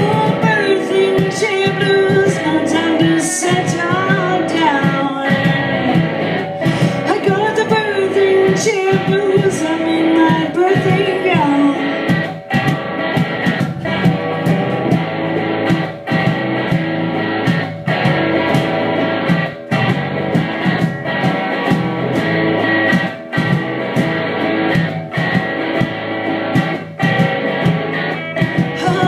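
A live band of electric guitar and bass guitar playing a song with a steady strummed beat, with a woman singing through the first part.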